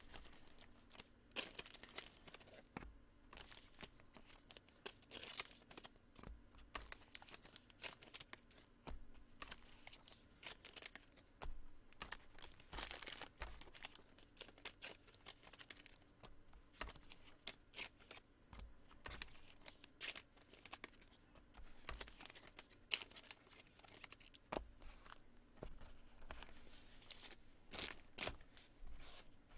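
Trading cards and their packaging being handled and gathered up: fairly faint, irregular crinkling and rustling with many small clicks and taps.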